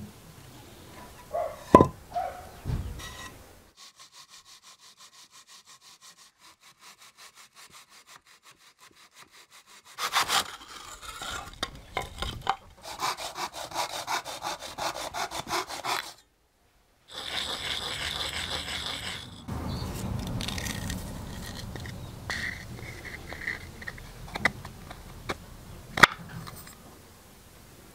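Hand hacksaw cutting through a porous white block with quick back-and-forth strokes, quieter at first and louder from about ten seconds in, followed by stretches of rubbing. A few knocks of handling come near the start.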